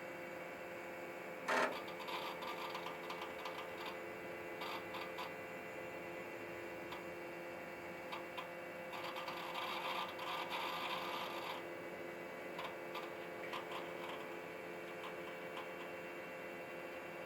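Computer humming steadily with a few fixed tones. A short loud click comes about one and a half seconds in, followed by spells of rapid mechanical clicking and chatter, densest for a couple of seconds past the middle.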